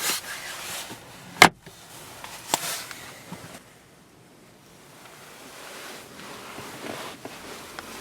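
Glove compartment lid of a Renault Laguna shutting with one sharp clunk, followed by a lighter click about a second later and faint handling noise.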